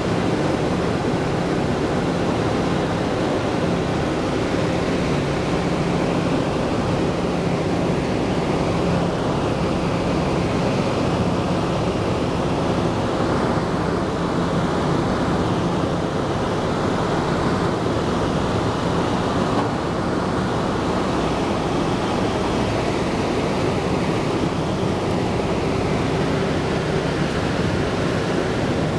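B-17G bomber's Wright R-1820 Cyclone nine-cylinder radial engines running steadily on final approach, with a low, even drone under a rush of airflow, heard from inside the fuselage.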